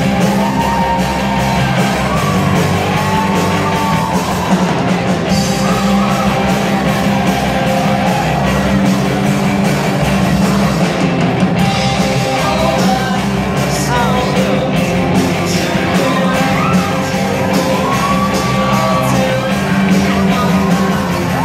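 Live rock band playing: electric guitars, bass guitar and a drum kit through small amplifiers, with sustained lead notes that bend up and down in pitch.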